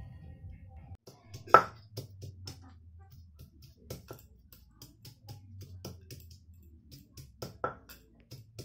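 Stone pestle knocking on garlic cloves against a stone grinding slab (shil-nora), crushing them for masala paste. The knocks come irregularly, a few ringing briefly, and the loudest falls about one and a half seconds in.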